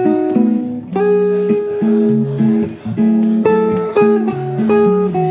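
Hollow-body archtop electric guitar playing held chords over a moving bass line, the low notes changing about every half second.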